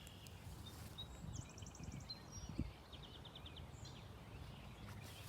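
Faint outdoor ambience with steady low background noise, and a songbird calling: a few short high chirps and two quick trills of rapid notes, the first higher and the second lower, about a second and a half apart.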